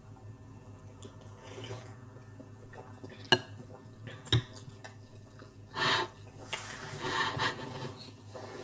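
Wooden spoons knocking and scraping on plates during hurried eating: two sharp clicks about a second apart, then louder rustling, scraping noises.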